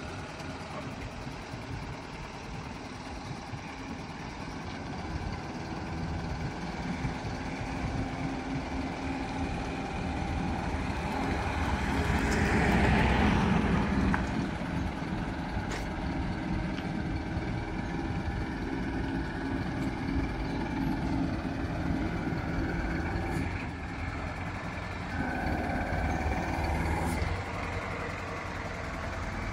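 Isuzu ELF/NPR truck's diesel engine running steadily, powering the hydraulics of its straight boom crane as the boom is worked. About twelve seconds in, the sound swells into a louder rush for a couple of seconds.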